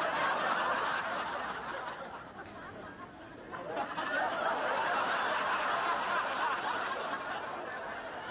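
Studio audience laughing in two waves: one at the start that dies down by about three seconds in, and a second, longer wave from about four seconds in.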